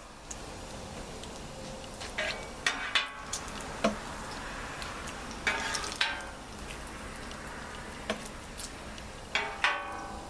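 Burger patties frying on a Blackstone flat-top griddle, a steady sizzle, with a few short scrapes and clatters of metal on the griddle, two of them about 6 s in and two more near the end.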